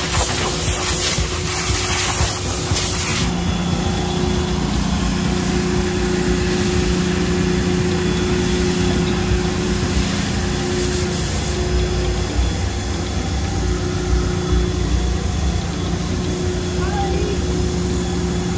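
Water spraying with a hiss for about three seconds, cut off suddenly, then the steady drone of a detailing vacuum running.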